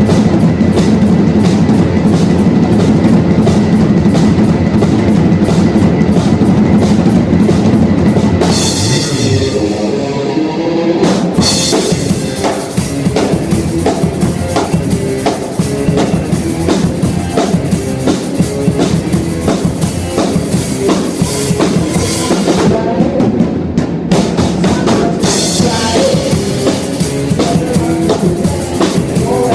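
Rock band playing live and loud, drum kit to the fore. About nine seconds in the cymbals drop out for a couple of seconds while the drums and lower instruments carry on, and they drop out again for a moment a few seconds before the end.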